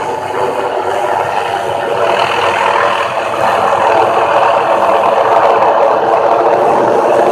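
Tree-trimming helicopter with its suspended air saw, running steadily and loud, getting a little louder over the first few seconds.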